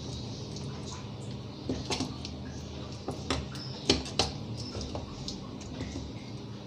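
A metal fork stabbing into raw beef on a ceramic plate, its tines tapping the plate in a few sharp, irregular clicks, the loudest about four seconds in. The fork is pricking holes all over the meat.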